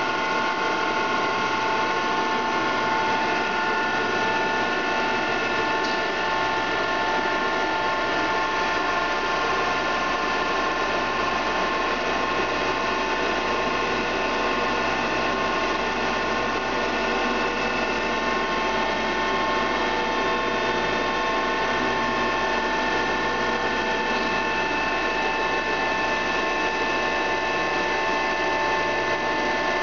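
Mollart A175 CNC twin-spindle gun drill running: a steady machine whine made of several fixed high tones over a continuous mechanical hiss, with a low hum that pulses about once a second.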